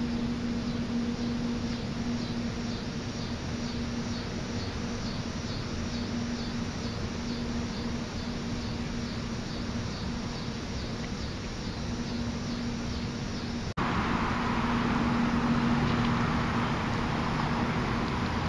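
Lawn sprinklers spraying water over a grass field: a steady hiss with a steady low hum under it. A faint high chirping pulses a few times a second through the first part. About fourteen seconds in, the sound drops out for an instant and the hiss comes back louder.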